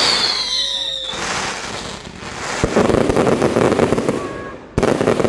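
Fireworks display going off: dense crackling with scattered sharp bangs, and a gliding whistle in the first second. It fades a little, then a loud burst starts near the end.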